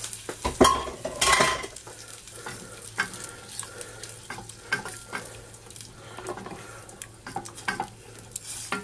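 Garlic butter and freshly added lemon juice sizzling in a stainless steel saucepan while a wooden spoon stirs it. Many short clicks and knocks from the spoon against the pan, the loudest about a second in.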